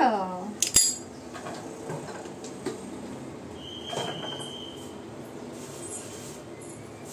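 Kitchen clatter of utensils being handled: a sharp clink a little under a second in, then a lighter knock around four seconds with a brief thin high tone.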